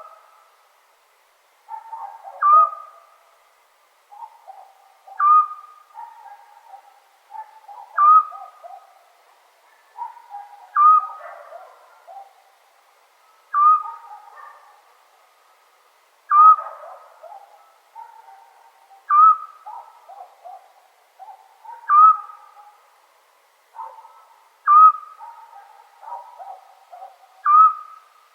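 Eurasian scops owl calling: a single short, clear whistled note repeated steadily about every three seconds.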